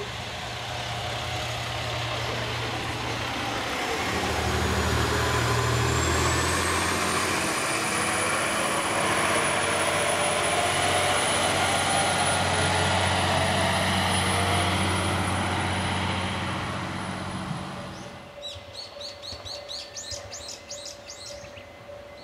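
HOT3500-series diesel railcar running by: engine drone and rail noise, with a high whine that rises in pitch about six seconds in and then holds. The train sound dies away about eighteen seconds in, leaving birds chirping.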